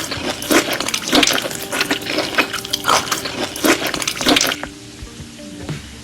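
Close-miked eating sounds: a quick run of wet clicking and crackling mouth noises that stops about four and a half seconds in.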